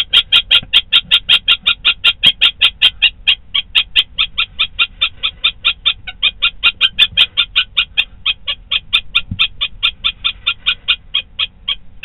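Female common kestrel giving its rapid kee-kee-kee alarm call, about five shrill notes a second with a few brief pauses, stopping near the end: the call of a kestrel defending its nest site against intruding barn owls.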